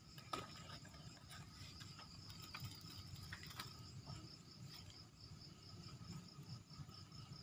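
Night insects, crickets, trilling steadily in a fast high-pitched pulse, with faint scattered rustles and clicks of wet leaves being pulled aside by hand.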